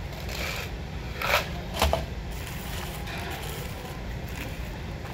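Handling sounds at a table: a clear plastic cup and paper-wrapped burgers being picked up and moved, with two sharp knocks about a second and a half in, over a steady low hum.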